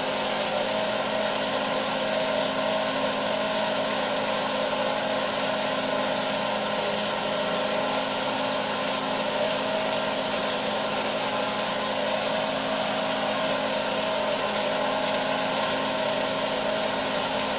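Small 12-volt electric water pump running steadily at low power with a steady hum, its cone spray nozzle hissing a cone of water into the scrubber container.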